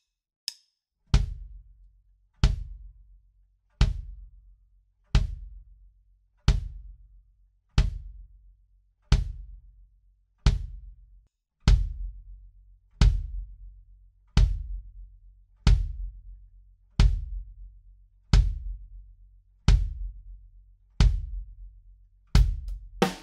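Kick drum struck by a foot-pedal beater at a slow, steady pace, about one hit every 1.3 seconds, each a deep boom that dies away. It is miked with a Shure Beta 91 inside the drum, and from about halfway it is blended with a small condenser on the batter side, where the low boom rings on longer. Near the end a few quicker hits come in with brighter attacks.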